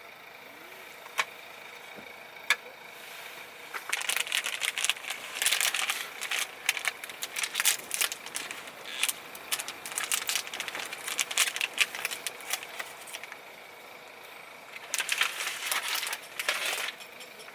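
Handling noise: two sharp clicks, then two long stretches of dense crinkling and rattling, the second shorter.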